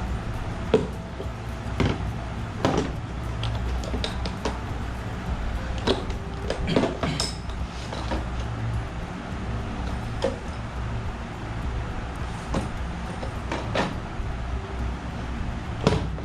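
Plastic toolbox being handled: a dozen or so irregular clicks and knocks as the lid is worked open and shut on its new stainless steel hinges to check them, over a steady low hum.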